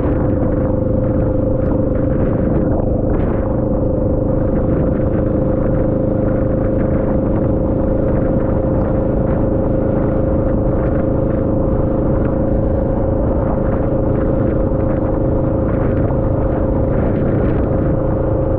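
Vehicle riding steadily along a wet road in the rain: a constant low rumble with a steady hum.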